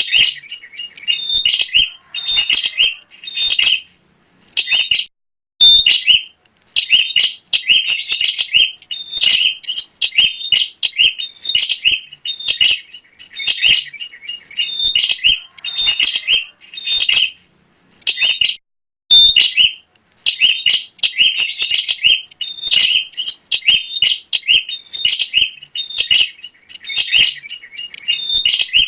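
Prinia (prenjak) singing vigorously: fast, high, chattering chirps in near-continuous runs, with a few short pauses.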